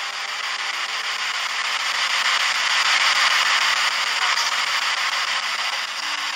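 Loud radio static from a handheld radio used as a spirit box, a steady hiss that swells to a peak about three seconds in and then eases. The investigators caption it as a spoken 'yes' answering their question.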